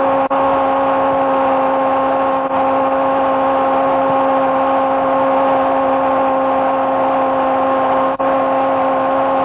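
Football commentator's long, drawn-out shout of "gol" held on one steady high note throughout, over the noise of a cheering stadium crowd.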